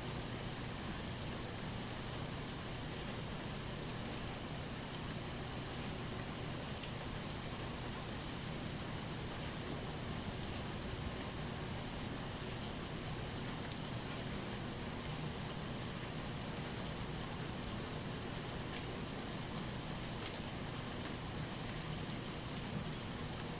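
Steady rain falling, a continuous even hiss with many fine scattered drop ticks.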